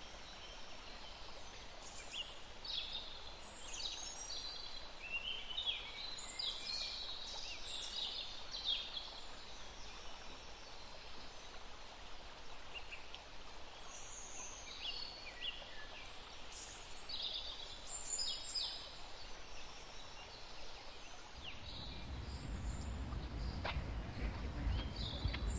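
Birds chirping in short clusters of high calls, with quieter stretches between. A low rumble joins in near the end.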